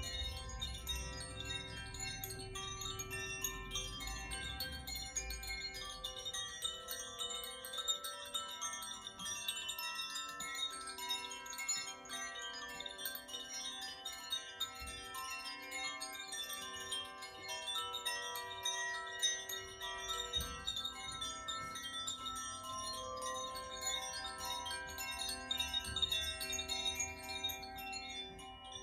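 Koshi chimes swirled by hand, the clapper striking the tuned metal rods inside the bamboo tube, so that many overlapping ringing tones sustain and blend together without a break.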